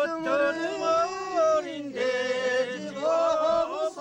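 A singer performing a Mongolian folk song, holding long notes that waver and slide in pitch.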